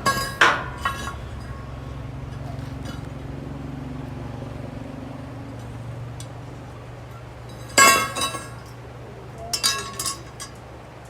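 Steel parts clanking and ringing: a strike near the start, a louder one about eight seconds in, and a quick few around ten seconds, over a steady low hum of a machine running.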